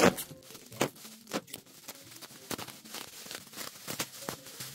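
Plastic packing wrap crinkling and tearing as it is pulled off a bubble-wrapped carving, in irregular sharp crackles, loudest right at the start.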